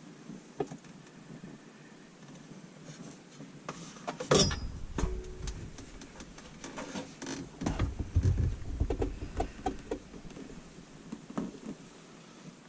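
Scattered clicks and knocks of parts and tools being handled during garbage disposal and sink drain installation, with one loud knock about four seconds in and a run of clattering and low thumps around eight seconds.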